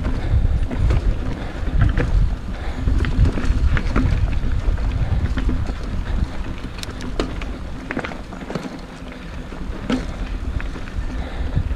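Wind buffeting a GoPro's microphone as a mountain bike rides over a rocky trail, with scattered sharp clicks and rattles from the bike over the rocks. The low rumble eases for a moment about three-quarters of the way through.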